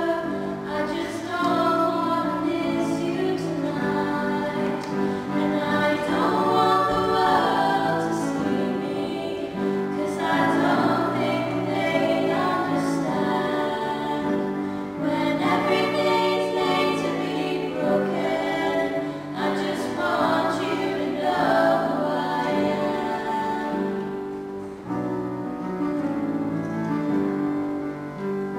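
Three young female voices singing a slow pop ballad together in harmony over piano accompaniment. Near the end the singing stops and the piano plays on alone.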